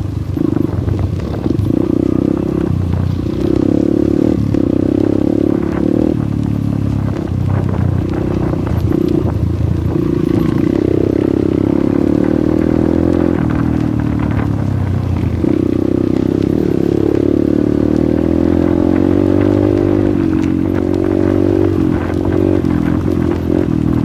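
Yamaha XTZ125's single-cylinder four-stroke engine running under way on a rough dirt trail, its pitch rising and falling with the throttle every few seconds, with frequent knocks and rattles from the bumpy ground.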